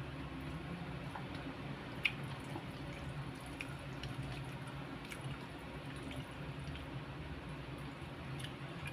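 Eating by hand: soft, wet mouth and hand noises with a few faint clicks, the sharpest about two seconds in, over a steady low hum.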